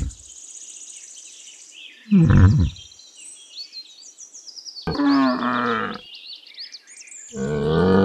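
Calf giving a short low grunt that falls in pitch about two seconds in, then a steadier low call about five seconds in, with birds chirping faintly behind. Near the end a longer, louder low call begins.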